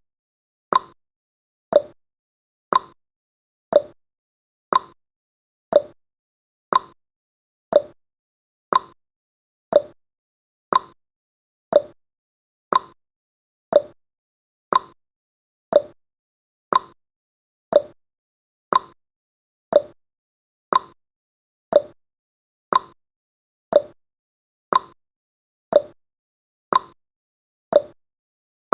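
Clock-tick sound effect of a countdown timer: a short, sharp tick once a second, keeping an even beat.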